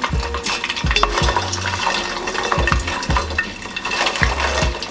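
Starch-coated hairtail (cutlassfish) pieces deep-frying in hot oil in a stainless steel pot: a steady sizzle and crackle with scattered sharp clicks.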